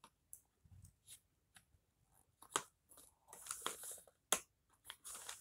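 Faint handling of plastic packaging and cut zip ties: scattered clicks and rustles, with sharper snaps about two and a half and four seconds in.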